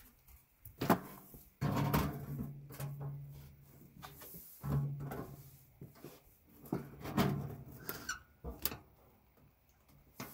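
Sheet-metal stovepipe sections knocking, scraping and rattling as they are fitted together and pushed down onto a small wood stove's collar, with a sharp knock about a second in and a few more clicks near the end.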